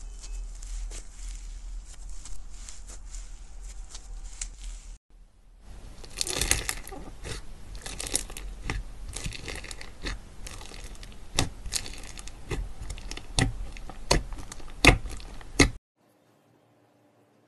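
Slime being stretched and pulled, with a soft crackly tearing sound; after a short gap about five seconds in, a finger squishes foam-bead slime in a tub, giving a dense run of sharp crunchy pops and crackles. The sound cuts off suddenly near the end.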